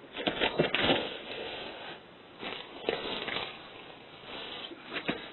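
Shoes scuffing and scraping on an icy driveway, with several sharp knocks, as a man slips and falls onto his hands and knees.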